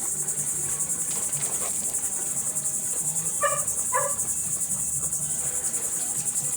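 Steady chorus of crickets: a continuous, rapidly pulsing high chirring. A little past the middle, two short calls sound about half a second apart.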